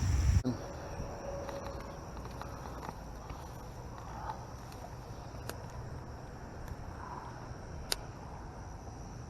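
A loud low rumble cuts off about half a second in. Then comes quiet outdoor ambience with a steady high insect buzz and a couple of faint clicks.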